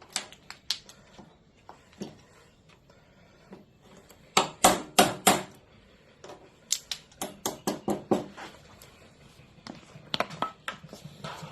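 A hammer driving a wood chisel into timber to break out the waste between saw cuts, heard as groups of sharp knocks. There are three strong blows about four and a half seconds in, a quicker run of about eight around seven to eight seconds, and two more near ten seconds.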